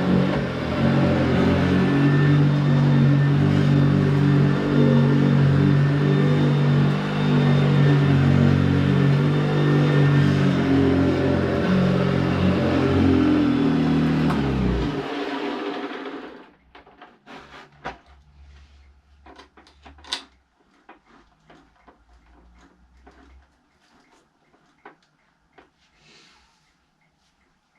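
Old Hoover vacuum cleaner running with a loud, steady motor hum, switched off about halfway through and winding down within a second or so, followed by a few faint clicks and knocks. The cleaner has developed a noise its owner calls horrible and is unsure is normal.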